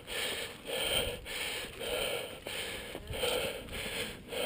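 Heavy, rapid breathing of a hiker out of breath from climbing the steep Half Dome cables, with a breath about every half second.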